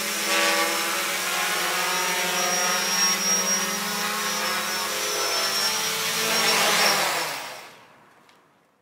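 Homebuilt quadcopter's four motors and propellers buzzing as it hovers: a steady blend of several tones whose pitch drifts slightly as the motors adjust. The sound grows a little louder just before it fades away near the end.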